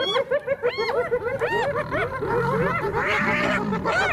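A chorus of spotted hyenas giggling: rapid overlapping runs of short, high, rising-and-falling whoops, the excited 'laugh' hyenas give while mobbing lions. From about two seconds in, lower growls and harsh snarling join in.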